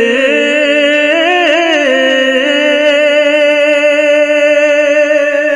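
A man singing a naat unaccompanied, drawing out one long held note that wavers and turns in an ornament about a third of the way in, then holds steady.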